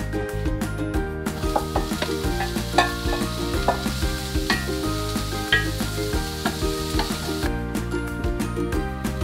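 Diced chayote sizzling in a cast-iron skillet while a wooden spoon stirs it, with scattered clicks of the spoon against the pan. The sizzle comes in about a second in and stops near the end, over steady background music.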